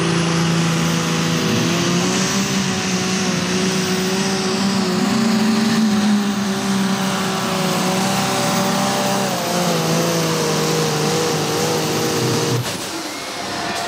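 New Holland light pro stock pulling tractor's 466-cubic-inch turbo diesel running flat out under load as it drags the weight-transfer sled, with a high whine over the engine note. The pitch holds steady with a slight rise about five seconds in and a dip about nine seconds in, then the engine note cuts off abruptly near the end.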